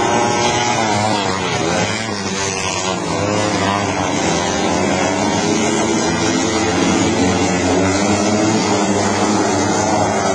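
Several junior speedway motorcycles racing, their engines revving up and down in overlapping pitches.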